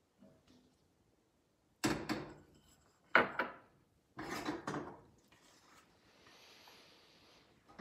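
Stainless-steel cookware being handled on a gas hob: sharp metallic clanks of a pot lid and pans about two, three and four seconds in, then a faint hiss near the end.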